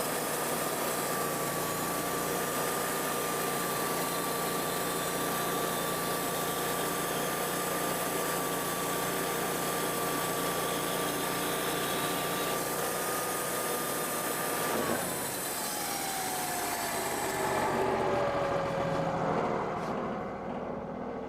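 Wood-Mizer band sawmill sawing through a sycamore log: a steady whine over a hiss. About fifteen seconds in, the whine falls in pitch as the mill winds down, and the hiss stops a few seconds later.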